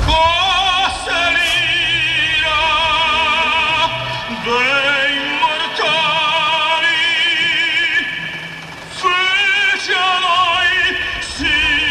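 Operatic singing: a high voice with wide vibrato holding long notes, with a short break about eight seconds in.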